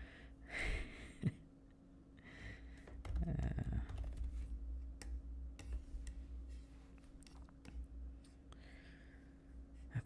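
Computer keyboard keys clicking in sparse, irregular taps, with a soft breath about half a second in and a brief low voice sound around three and a half seconds.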